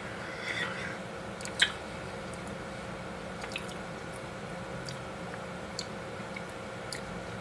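Wooden chopsticks picking at the last of the cold noodles in a bowl: a few faint taps and clicks, one sharper click about a second and a half in, with a little wet chewing near the start. Steady room hum underneath.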